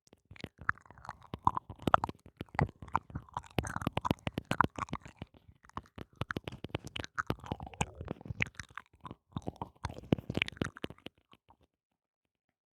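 Close-miked ASMR mouth sounds: rapid, irregular wet clicks and smacks, stopping about a second before the end.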